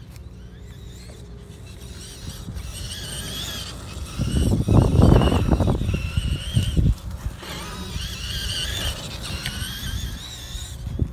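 Traxxas E-Maxx electric RC monster truck driving on grass: a high whine from its motor and drivetrain that wavers up and down with the throttle. About four seconds in, a loud low rush lasts for two or three seconds.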